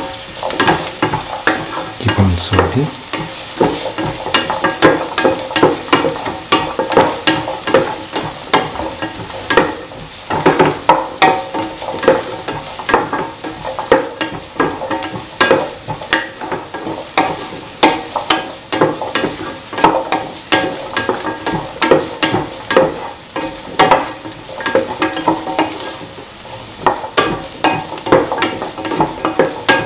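Sliced onions, shallots, dried red chillies, ginger and garlic sizzling in hot oil in a pan while a spatula stirs them, with frequent sharp scrapes and clicks of the spatula against the pan.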